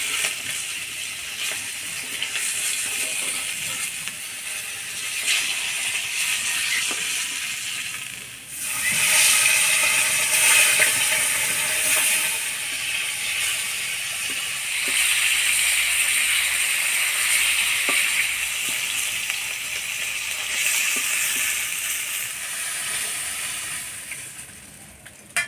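Kokila fish frying in hot oil in an iron kadai: a steady sizzle that dips briefly about eight seconds in, then comes back louder, with a few light ticks of a metal spatula.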